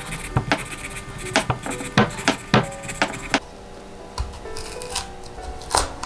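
Kitchen knife cutting and scraping through tough pomegranate rind on a wooden cutting board: a quick run of short, crisp cuts over the first three seconds or so, then only a few scattered ones. Soft background music plays throughout.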